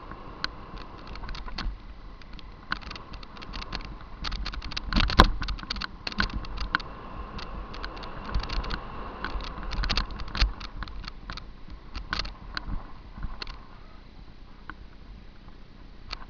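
Mountain bike clattering down a rough dirt downhill trail: irregular sharp knocks and rattles as it hits bumps, the loudest about five seconds in, over a steady low rumble of wind and tyres.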